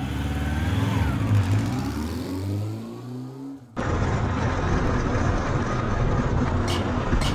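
Logo sound effect: an engine-like revving sound whose pitch falls, cut off suddenly almost four seconds in. Background funk music with drum hits follows.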